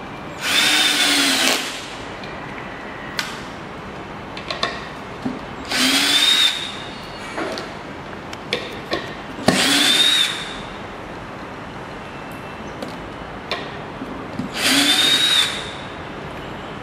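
Power drill driving wood screws into a wooden beam through a magnetic-coil PH2 screwdriver bit: four runs of about a second each, the motor whine rising as it spins up and then levelling off. Small clicks between the runs.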